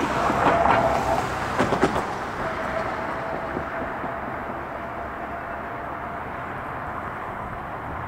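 Steady distant rumble of road traffic and a freight train still far down the line, with a faint steady tone running through it. It is loudest in the first second, and a few sharp knocks come about two seconds in.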